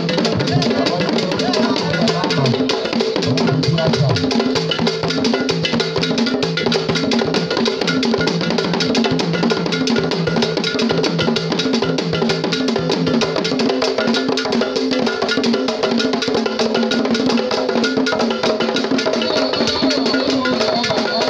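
Traditional Ghanaian drum music: several drums playing a steady, dense rhythm over a repeating wood-block-like percussion pattern. The deepest drum strokes drop out about two-thirds of the way through while the rest of the ensemble plays on.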